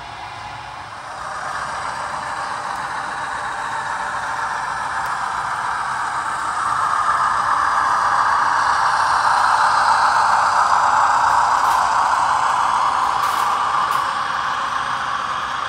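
Model trains running on the layout's track: a steady rolling rattle of wheels and motors that grows louder from about a second in and eases off slightly near the end as the locomotives pass close by.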